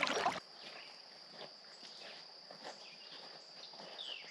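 Faint, steady high-pitched insect trill with a few short chirps near the end. Louder noise cuts off abruptly about half a second in.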